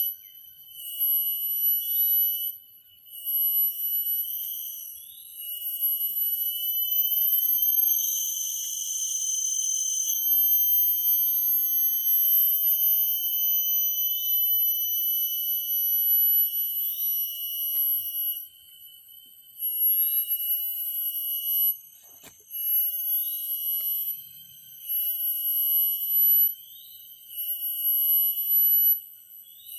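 Cicadas calling in tropical forest: several high, steady buzzing tones that cut in and out, with a short rising chirp repeating about every second and a half. A louder, hissier buzz swells in from about eight to ten seconds in.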